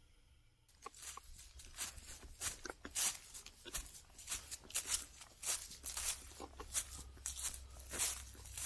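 Footsteps crunching through dry fallen leaves and grass at a walking pace, about two steps a second, starting about a second in.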